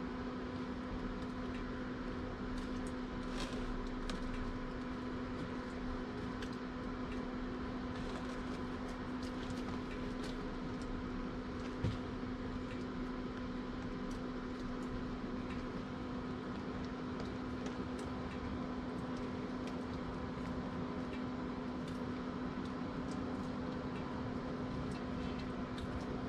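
A steady machine hum holding a constant low tone, with scattered faint clicks and rustles from gloved hands packing salmon pieces into cure in a glass bowl, and one sharp knock about twelve seconds in.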